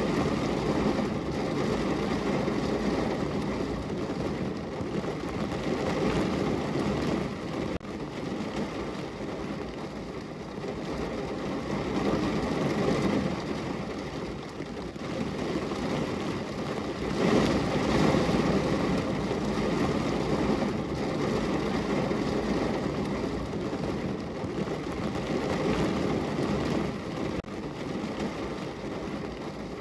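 Rain falling on a window: a steady, even noise with a dull low rumble under it, briefly louder a little past halfway.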